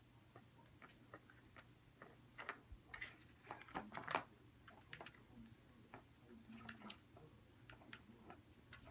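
Kittens pawing at a plastic cat track toy: scattered, irregular clicks and taps of plastic, busiest about three to four seconds in, over a faint low hum.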